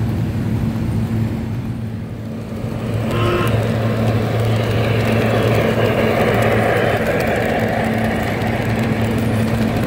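S gauge model train running on track: the rumble and clatter of a model steam locomotive and passenger cars rolling close by, getting louder about three seconds in, over a steady electric hum.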